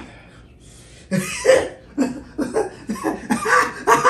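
A person coughing in a run of short fits, with laughter mixed in, starting about a second in: coughing from the burn of very spicy noodles.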